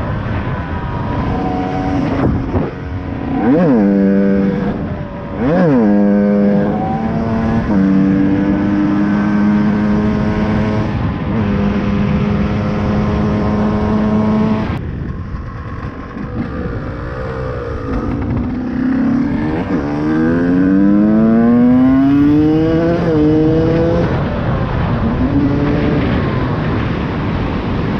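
KTM EXC 125 two-stroke enduro engine with a Scalvini expansion pipe, ridden hard: two quick sharp revs a few seconds in, then held at high revs for several seconds before dropping off suddenly around halfway. Near the end it climbs through several rising revs in quick succession.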